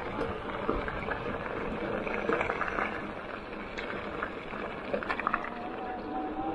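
Electric mountain bike's fat tyres crunching over loose gravel, with small stones clicking and the bike rattling. Near the end the crunch eases as the tyres reach smooth pavement, and a steady whine comes in.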